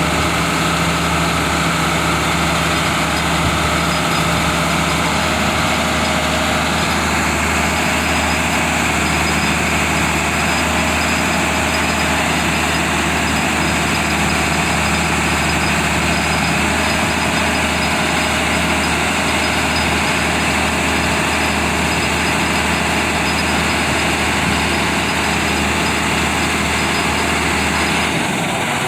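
Cummins inline-six diesel engine of a Badger 670 mobile excavator running steadily, with a slight change in tone about seven seconds in.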